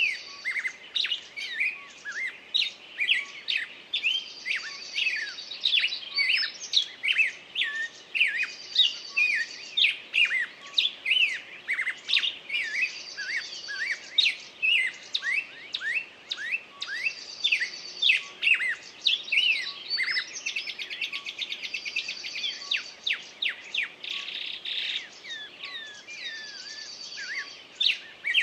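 Several small birds chirping busily, many quick short calls overlapping, with a higher buzzing trill from one bird repeating about every four seconds.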